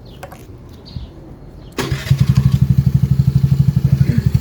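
Honda Navi scooter's small single-cylinder engine starting on the electric starter with the kickstand up, catching almost at once about two seconds in and settling into a steady, rapidly pulsing idle. That it starts shows the kickstand switch now allows starting with the stand up.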